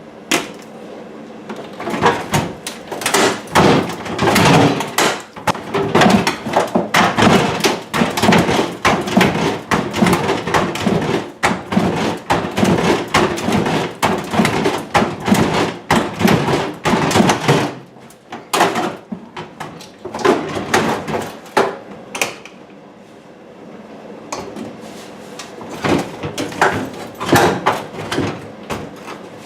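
Upper kitchen cabinets being pried and knocked off the wall: rapid, irregular banging and clattering of wood, easing off twice before a last few bangs near the end.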